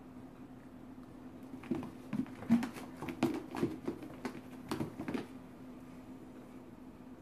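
Two cats sparring on carpet: a quick run of about a dozen soft thumps and scuffles from paws and bodies, starting a second and a half in and stopping about five seconds in. A faint steady hum runs underneath.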